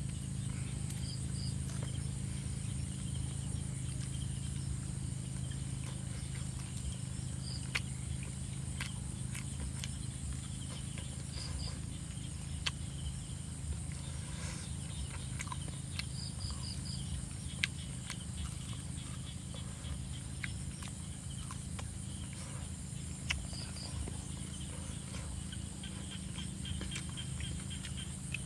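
Steady outdoor background: a low hum under a constant high insect drone, with small groups of short high chirps every few seconds and a few sharp clicks.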